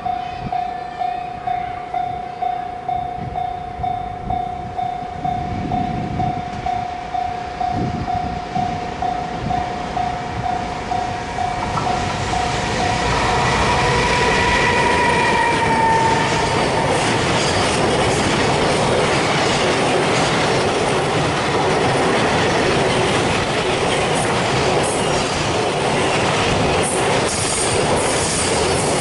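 Japanese level-crossing warning bell ringing in a steady repeating pattern. About twelve seconds in, a train comes through the crossing and its loud passing rumble and wheel clatter drown out the bell.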